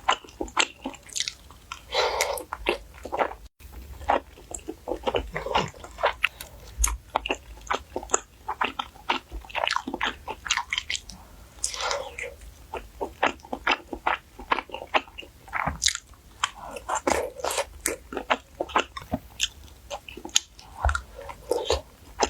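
Close-miked eating of saucy wide glass noodles: wet chewing and biting with dense, irregular mouth clicks, and three longer noisy sounds spread through.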